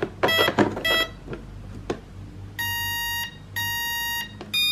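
Electronic speed control of a Traxxas M41 boat giving its power-up beeps as the battery is connected. First come two short beeps in the first second, then two longer beeps of equal pitch a second apart, then a third, higher and longer tone beginning near the end.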